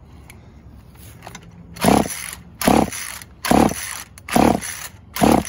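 Old Poulan two-stroke chainsaw being pull-started, its recoil starter yanked five times at a steady pace starting about two seconds in, each pull a loud rasp, the engine turning over without firing. The cylinder is scored and the engine lacks the compression to start.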